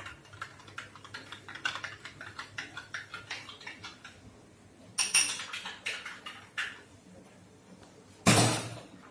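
A metal spoon stirring a drink in a small glass tumbler, clinking quickly and lightly against the glass, with a few sharper ringing taps on the glass about five seconds in. Near the end there is a single loud clatter.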